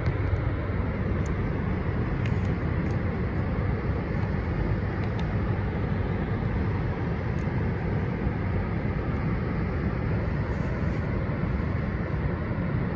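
Steady hiss and rumble of shortwave static from a portable shortwave receiver's speaker, with a few faint clicks.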